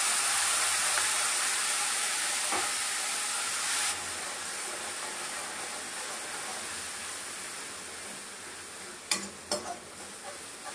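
Water splashed into a hot kadhai of fried onions and Maggi masala sizzles hard, the step that keeps the masala from burning. The sizzle drops sharply about four seconds in and slowly fades as a steel spoon stirs it, clinking against the pan a few times near the end.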